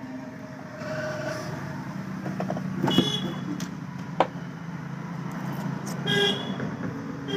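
Passing road traffic: a vehicle engine running, with short horn toots about three seconds in and again later, and a few sharp clicks.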